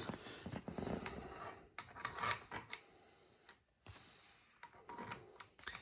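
Light scraping and small clicks of spacers and strimmer-head parts being handled and slid onto the strimmer pole's shaft, with a quiet pause in the middle and a sharper click near the end.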